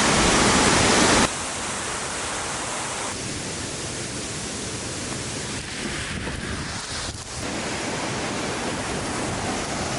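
Steady rushing noise of a waterfall, louder in the first second or so, then dropping suddenly to a lower, even level.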